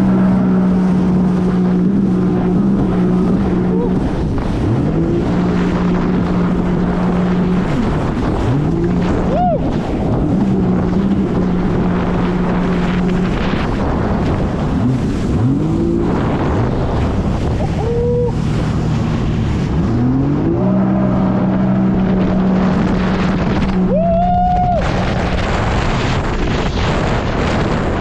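Jet ski engine running at speed. Its pitch drops off and climbs back up several times as the throttle is eased and opened again, with wind buffeting the microphone.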